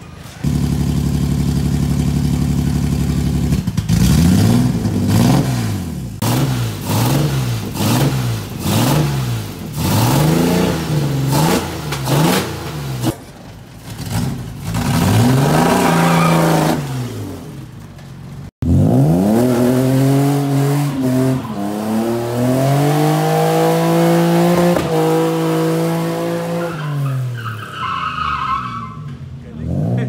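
Datsun 240Z's naturally aspirated RB25 straight-six on individual throttle bodies, revved hard. It runs steadily at first, then is blipped up and down in quick, even revs about one a second. After a longer rev, it is run up and held high for several seconds before dropping back near the end.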